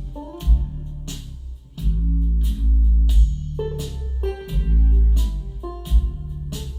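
Music played through a hi-fi system with a REL subwoofer in a room: a track with deep, sustained bass notes under plucked strings and sharp drum hits on a steady beat.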